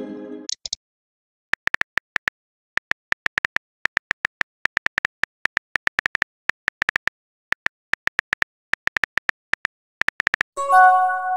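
Phone keyboard tap clicks from a texting-app typing sound effect, several a second in quick runs with short pauses. A short chime sounds in the first half-second as a message arrives. Near the end a brighter chime of several tones plays as the typed message is sent.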